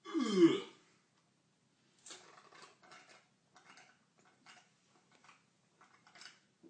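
A loud belch, under a second long, from gas after a beer has been downed quickly. It is followed by a run of faint short clicks and rustles.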